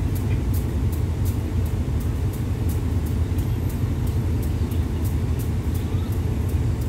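Diesel train standing with its engine idling: a steady low rumble with a faint, regular high ticking about three times a second.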